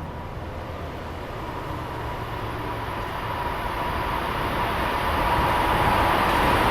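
NJ Transit commuter train approaching the station platform, its rumble growing steadily louder. A steady whine grows stronger toward the end as it comes in.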